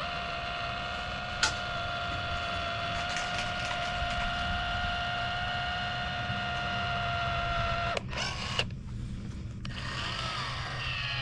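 Steady whine of a small electric motor at a fixed pitch, with a sharp click about a second and a half in. The whine cuts off with two clicks about eight seconds in, and a wavering tone starts again near the end.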